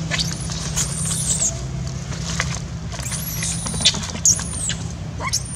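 Young long-tailed macaque screaming in distress: a string of high, arching squeals, about five or six, each rising and falling. A steady low engine hum runs underneath.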